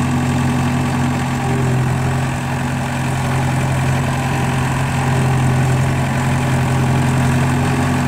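Vermeer V120 4x4 trencher's diesel engine running at a steady, even speed.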